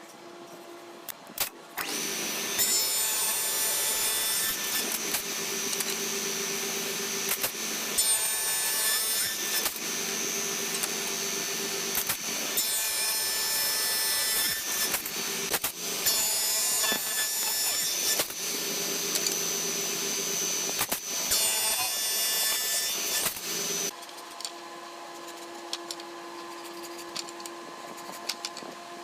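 An electric woodworking power tool cuts into wood in several passes for about twenty seconds, its motor adding a steady whine. It stops near the end, leaving a fainter steady hum.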